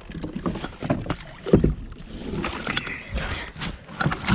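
A hooked bass splashing at the surface beside a plastic fishing kayak as it is being landed, with water sloshing and several knocks against the hull, the loudest a thump about a second and a half in.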